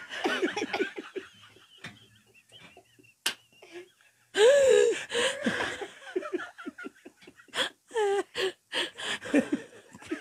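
A man laughing hard in repeated bursts. The laughter eases off for a couple of seconds, then breaks out loudly again about four seconds in.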